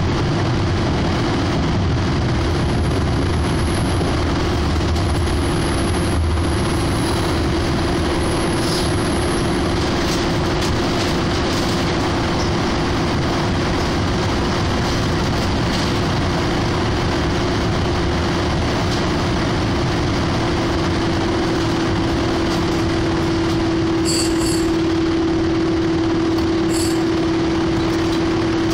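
Hanshin Mukogawa Line electric train running, heard from inside the car: steady rumble of wheels on rails with a constant hum that grows stronger in the last third.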